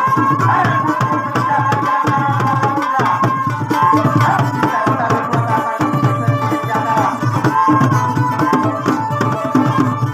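Togal folk music from Makian, North Maluku, instrumental: a wavering fiddle melody over a steady, driving hand-drum beat.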